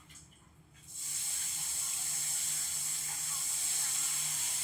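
A steady hiss, strongest in the high treble, drops away for about the first second and then comes back and holds evenly.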